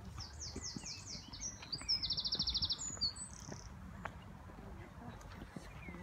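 A songbird sings one high phrase: a run of quick falling notes, then a fast rattling trill, ending with a few short notes about three seconds in.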